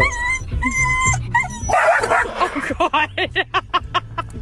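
A dog whining in repeated high-pitched cries, each under half a second, cut short by a harsh bark from a second dog about two seconds in. This is followed by a man laughing in quick bursts.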